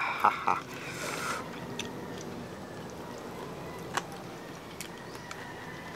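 Quiet eating sounds: chewing and crunching on crispy deep-fried duck, with a few sharp clicks scattered through.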